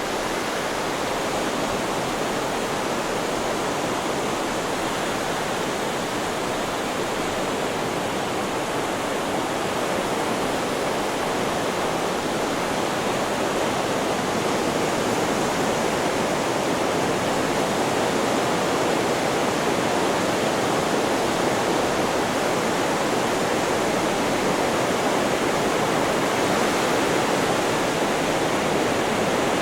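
Steady white noise: an even, unbroken hiss with no rise and fall of waves in it.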